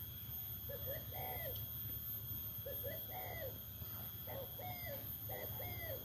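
A bird cooing in short repeated phrases of two or three arched notes, coming more often toward the end, over a steady low wind rumble.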